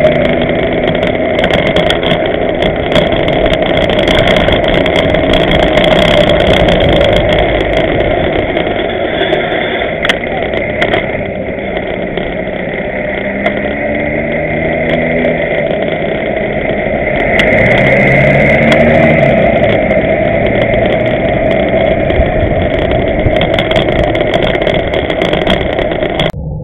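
Diesel engine of a Mercedes-Benz Citaro city bus running just ahead, its pitch rising twice as it speeds up. Steady wind and road noise on a bicycle-mounted camera's microphone runs underneath.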